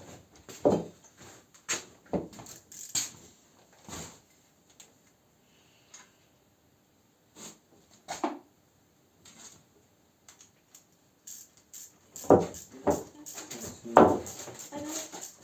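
Metal tools and small engine parts clinking and knocking: scattered single hits at irregular intervals, a few with a short metallic ring, the strongest near the end.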